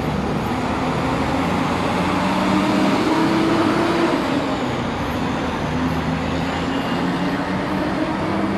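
Road traffic: motor vehicle engines running steadily, with one engine's pitch rising a little in the middle and then easing back.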